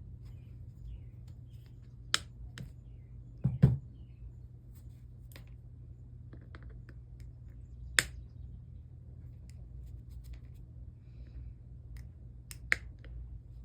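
Wire cutters snipping off protruding wire ends flush: a few sharp, separate snaps spread over the seconds, with small handling clicks between, over a steady low hum.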